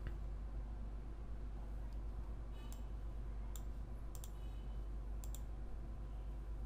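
Computer mouse clicking a handful of times, some clicks in quick pairs, over a faint steady low hum.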